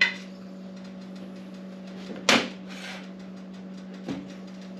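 Cooking utensils and a frying pan being handled on a stovetop: a sharp click at the start, a louder clatter a little over two seconds in and a lighter knock near the end, over a steady hum.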